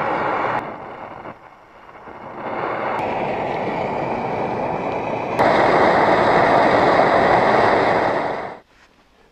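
Multifuel camping stove burning under a pot, a steady rushing noise. It drops away and comes back, jumps abruptly in level a few times, and cuts off near the end.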